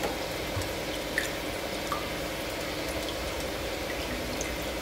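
Water dripping as soaked urad dal vadas are squeezed out by hand: a few faint, scattered drips over a steady background hum.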